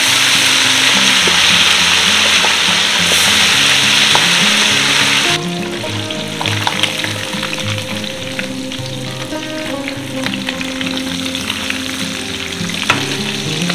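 Food frying in hot oil in a pan, with a dense, loud sizzle. About five seconds in it cuts abruptly to a quieter sizzle with scattered ticks and clinks.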